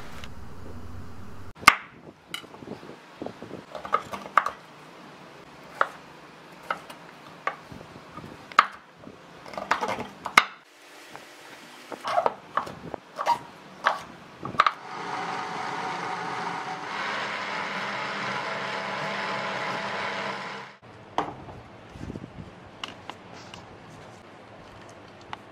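Knife chopping peeled cassava on a wooden cutting board: a run of sharp, irregular knocks. Then an electric blender runs steadily for about six seconds, grinding the cassava, and cuts off suddenly.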